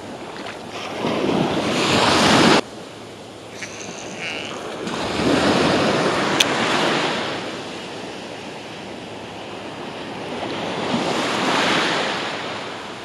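Surf waves breaking and washing up the beach in three slow swells, about five seconds apart, with wind buffeting the microphone; the first swell cuts off suddenly. A single sharp click sounds about six seconds in.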